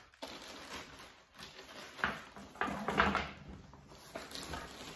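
Rustling and shuffling of bags and packed gear being handled and lifted out of a storage bin, with a few louder bursts of rustling about two to three seconds in.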